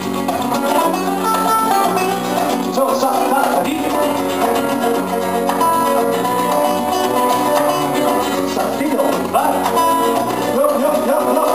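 Live band music led by acoustic guitars playing a melody over bass and percussion.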